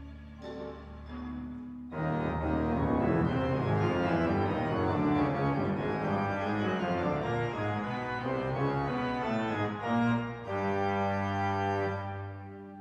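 Organ playing: soft held notes, then about two seconds in a sudden loud, dense cluster of many notes, settling near the end into steady held chords.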